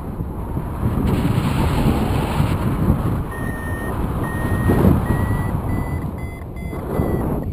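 Wind rushing over the microphone, and from about three seconds in a paragliding variometer beeping in a steady rhythm, its pitch rising slightly and the beeps coming quicker: the tone a vario gives when the glider is climbing.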